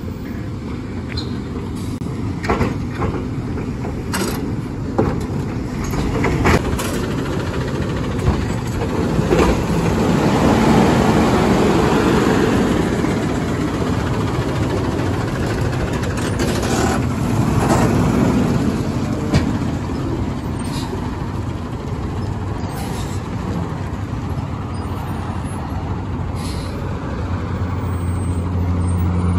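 A New Way automated side-loader garbage truck running on natural gas, its arm lifting and shaking out a wheelie bin with repeated clanks and knocks over the steady engine and hydraulics. Near the end the engine note rises as the truck pulls away.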